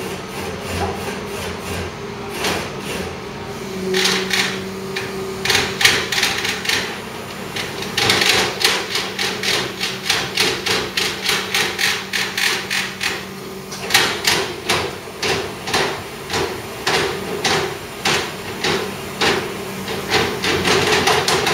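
Runs of sharp knocking, about three strikes a second, hammer-like, over a steady low hum.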